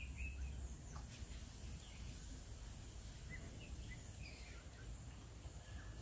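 Faint, scattered short chirps of small birds over a low outdoor rumble, with a steady high-pitched tone underneath.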